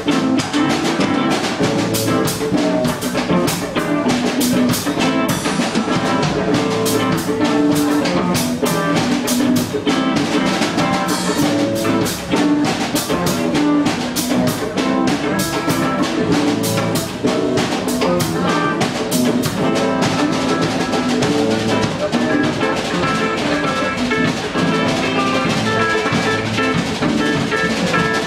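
Live band playing, with a drum kit's hits coming thick and fast over sustained pitched instruments.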